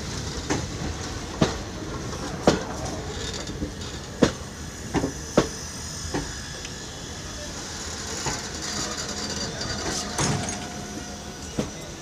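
Indian Railways passenger coaches of a departing express train rolling past. The wheels clack over the rail joints in sharp, irregular knocks about a second apart over a steady rumble.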